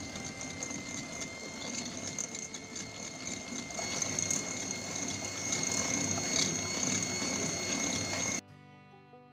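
Electric hand mixer running steadily, its beaters churning butter and sugar in a glass bowl, with a constant high motor whine. It cuts off suddenly about eight seconds in, and soft background music follows.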